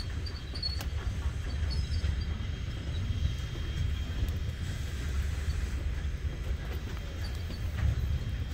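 A train rolling by with a steady low rumble and an occasional faint click.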